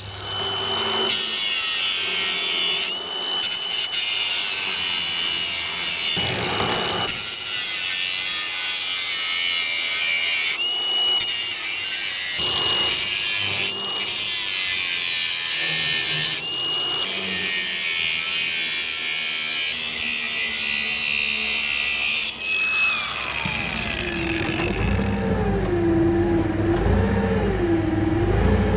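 Angle grinder with a cut-off disc cutting through steel welds, a high whine over a harsh hiss, with short breaks in the cutting. About 22 seconds in it shuts off and winds down. A forklift engine then runs, its pitch rising and falling repeatedly.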